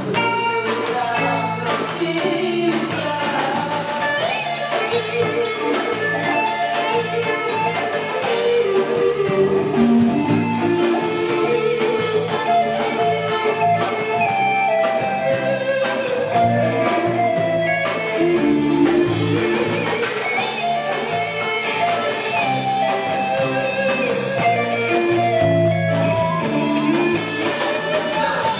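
Live rock band playing: electric guitar, bass guitar and drum kit, with a woman singing into a microphone over them.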